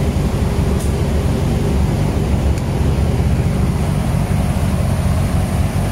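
The Mitsubishi Evo IX's Jun-built turbocharged 4G63T engine idling steadily on the dyno, a low, even running sound with no revving.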